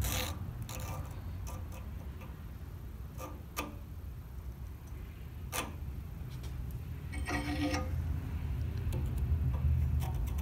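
Scattered sharp metal clicks and a brief scrape as a steel scribe and hold-down clamps are handled on a steel plate and fixture table, over a low steady shop hum.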